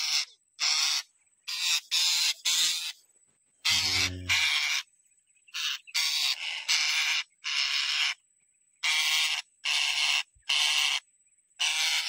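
Long-tailed parakeets giving harsh, screechy squawks, about a dozen short calls in irregular runs.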